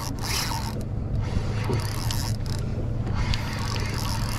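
Fishing reel being cranked to bring in a hooked bluefish, its gears whirring and clicking, over a steady low hum.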